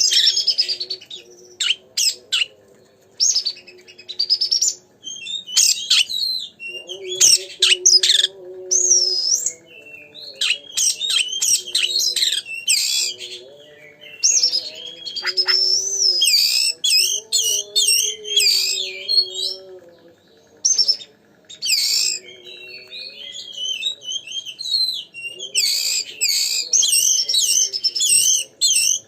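Oriental magpie-robin (kacer) singing vigorously: a fast, varied run of loud whistles, chirps and trills, with short pauses between phrases.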